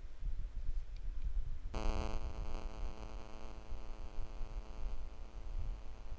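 A low rumble of microphone noise, joined suddenly about two seconds in by a steady electrical buzz with many overtones that holds on.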